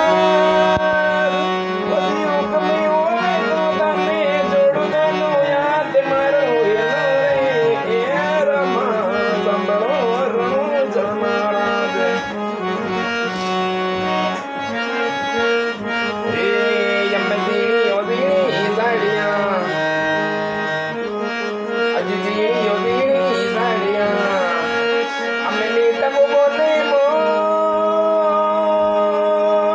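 Instrumental interlude of a Rajasthani devotional song: a reedy melody line over sustained drone notes, with hand-drum percussion keeping the beat.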